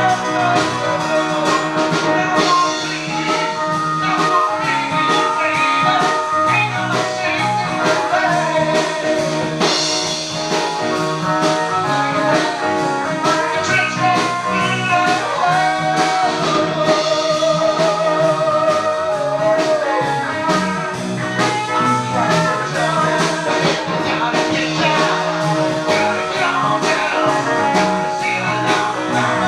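Bluesy rock band music: a voice singing over guitar and a steady drum beat.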